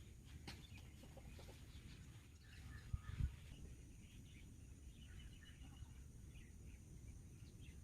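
Faint clucking of chickens, with a low thump about three seconds in.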